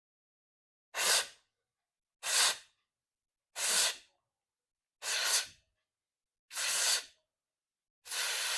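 A man drawing air in through the mouth in six short, hissing gulps, about one every second and a half, the last one longer: the sip-by-sip inhalation of Plavini pranayama, filling the belly with breath.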